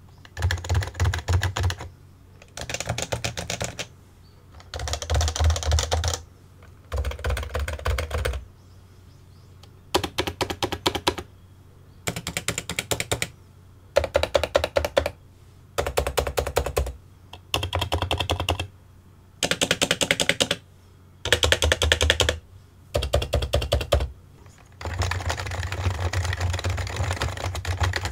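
Typing on a Topre electrostatic-capacitive keyboard, keys clacking in quick bursts of about a second and a half with short pauses between, then without a break near the end.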